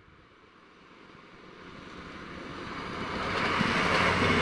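Passenger train approaching and passing close at speed. Its rushing noise grows steadily louder over a low steady hum and is loudest near the end.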